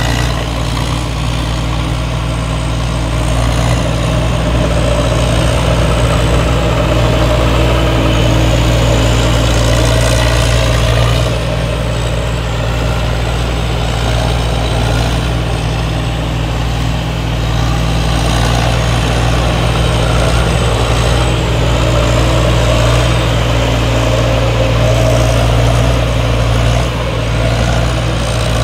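T. Charoen Kanchang 2017 tracked rice combine harvester running steadily as it cuts and threshes standing rice, its engine and machinery making a loud, even drone.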